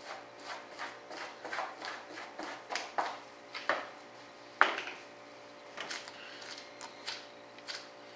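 Short, uneven rubbing strokes of fiberglass cloth being worked by hand into a wing mold during a wet layup, with one sharper knock about four and a half seconds in.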